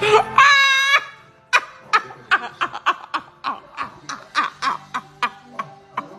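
A short high-pitched cry, then a person laughing hard in rapid, even bursts, about four a second.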